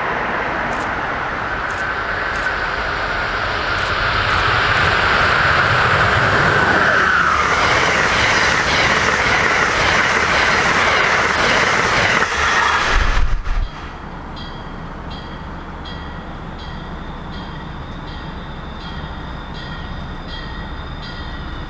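Amtrak passenger train passing at speed close by: a rising rush with a whine that drops in pitch as the head end goes by, then the rushing air and clicking wheels of the coaches. The sound cuts off abruptly about 14 seconds in, leaving a quieter steady rumble of another train still far off.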